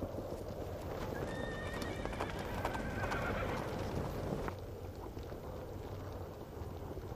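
Horse hoofbeats, with a horse whinnying a little over a second in. The sound drops down a little about halfway through.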